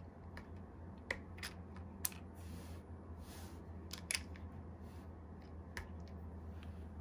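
Small sharp clicks, about five or six spread unevenly, from the front controls of a Leica M7 rangefinder body as they are pressed and worked by hand, with soft rubbing between. The loudest click comes about two seconds in, and a quick double click about four seconds in.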